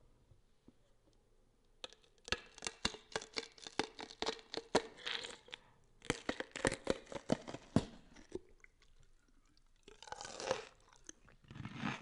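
Close-miked crunching and crackling from eating seafood: a dense run of sharp cracks and smacks for several seconds, a short pause, then more chewing noise.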